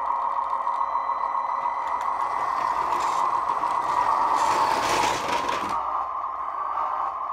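Small electric drive motor and gears of a 1/16 scale radio-controlled model tractor whirring as it drives past on concrete, louder as it comes close, then cutting off suddenly about six seconds in. A steady hum runs underneath throughout.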